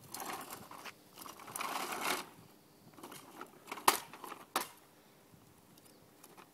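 Hard plastic wheels of a toddler's push-along walker toy rattling over an asphalt driveway in two short stretches, followed by two sharp clicks less than a second apart.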